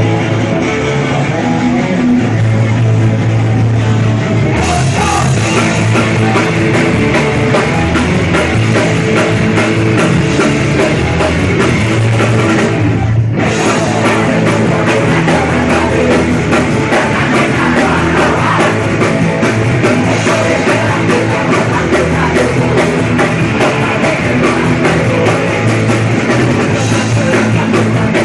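Punk rock band playing live: electric guitar, bass and drum kit. The drums and cymbals come in about five seconds in, and the whole band stops for a split second around the middle, then carries on.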